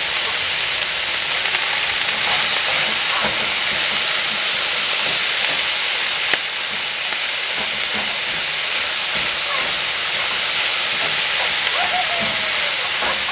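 Rain falling on a caravan roof, a steady hiss.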